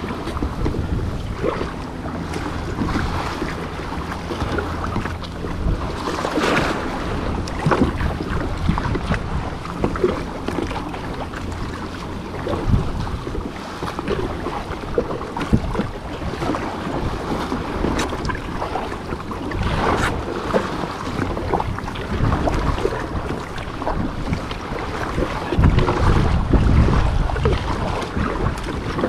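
Wind buffeting the microphone of a GoPro on an ocean kayak, a continuous low rumble, with sea water splashing and sloshing against the hull. The rumble and splashing grow louder for a few seconds near the end.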